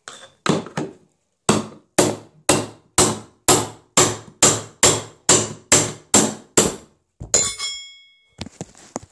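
Hammer striking a cold chisel to drive a skirting-board nail through the board and free it: two light taps, then about a dozen sharp, even blows at roughly two and a half a second. A single ringing metallic clank follows about seven seconds in.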